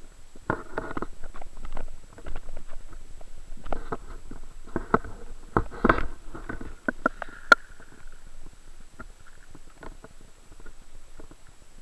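Underwater sound of irregular clicks and crackling knocks, busiest in the first seven seconds with one sharp click about seven and a half seconds in, then thinning out.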